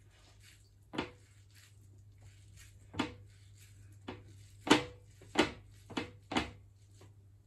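Hands scooping sticky risotto rice from a glass bowl and patting it flat in the palm to shape an arancini ball: a series of short, soft pats and taps, about seven of them, the loudest a little before the middle.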